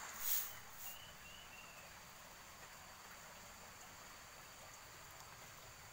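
Faint outdoor ambience: a steady high insect drone over a soft hiss. Footsteps crunch on gravelly ground and stop about a second in, and three short, faint, falling chirps follow.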